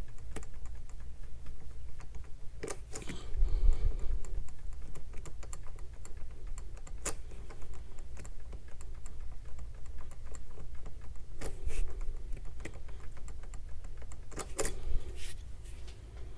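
Key blank being twisted and rocked in a Master Lock padlock to impression it: rapid light clicking and rattling, with a few louder clicks, over a steady low hum.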